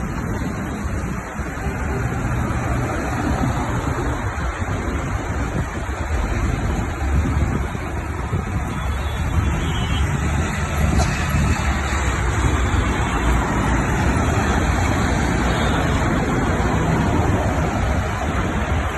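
Concrete mixer truck's engine running, a steady low rumble mixed with road traffic noise.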